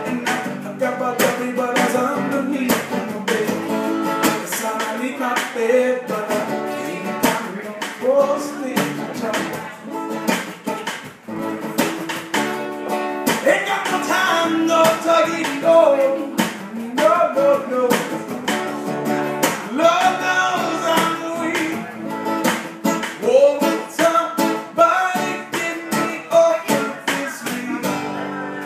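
Live acoustic duo: a man singing over his strummed acoustic guitar, with a snare drum struck to keep the beat.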